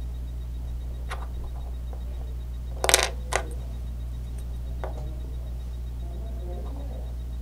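LEGO pieces being handled, giving a few small plastic clicks and knocks. The loudest is a sharp pair about three seconds in, heard over a steady low hum.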